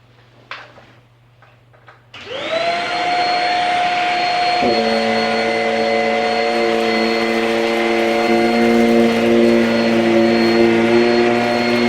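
Shark Rocket corded stick vacuum switching on about two seconds in, its motor spinning up with a rising whine, then running steadily with a loud rushing hiss. A couple of seconds later a second, lower motor hum joins it.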